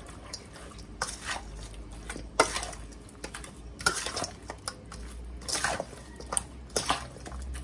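Metal utensil clinking and scraping against a stainless steel bowl as seasoned raw chicken pieces are stirred in their wet marinade, in irregular short strokes.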